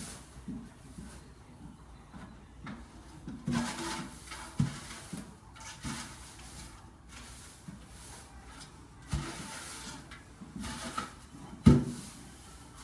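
Scattered knocks, bumps and short rustling scrapes, with one sharp thump near the end.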